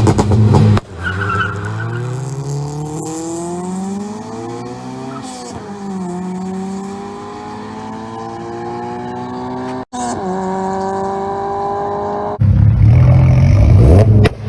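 Car engine accelerating hard, its pitch climbing, dropping sharply about five seconds in as at a gear change, then climbing again. It breaks off for an instant near ten seconds and turns louder and rougher in the last two seconds.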